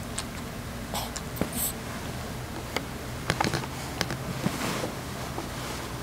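Sleeping Boston terrier snoring: one breathy snore about four and a half seconds in, with small clicks scattered through.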